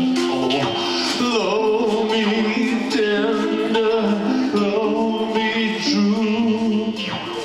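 Live country-style acoustic music: a harmonica plays a melody with held chords and bent notes, over a strummed small guitar and a gourd shaker.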